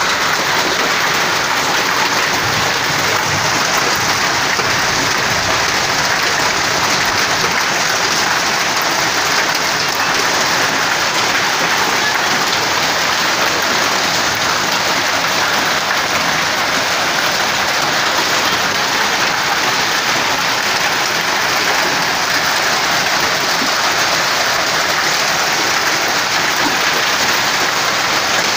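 Heavy rain falling steadily on concrete, roofs and plants: an even, unbroken hiss of rain.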